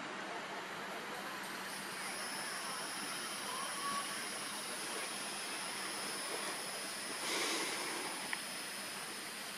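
Steady outdoor background hiss with no single clear source, with a faint high steady whine over it and a brief louder rush of noise about seven seconds in.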